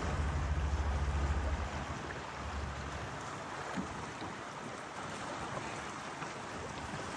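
Steady rushing noise of moving water, with wind buffeting the microphone as a low rumble that eases off about two seconds in.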